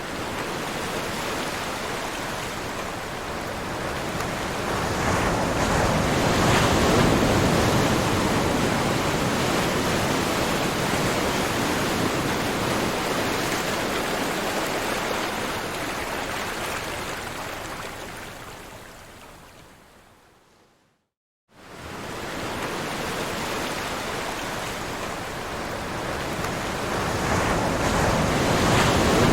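Ocean surf washing in, a steady rushing that swells and then fades away, dropping to silence for about half a second roughly three quarters of the way in before the surf sound starts again.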